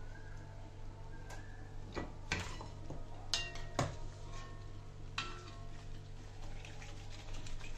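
A metal spoon clinking and scraping against a frying pan a handful of times as fried papdi are lifted out of hot oil, over a steady low hum.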